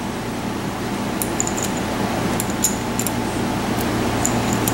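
Light metallic clinks of new steel coil clutch springs as they are handled and set onto a Honda CB450 clutch pressure plate, a handful of scattered ticks over a steady background hum.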